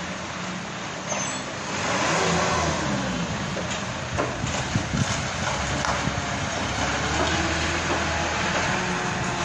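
Engine of a Kia light truck loaded with stones running as it moves and turns into position, its pitch rising and falling about two seconds in.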